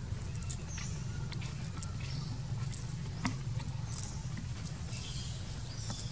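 Outdoor ambience: a steady low rumble with scattered small clicks and brief high chirps.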